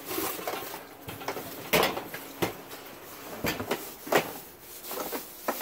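Stored belongings being rummaged through in a plastic tote and cardboard boxes: rustling and shifting, with several sharp knocks and clatters of objects hitting each other, the loudest a little under two seconds in and again about four seconds in.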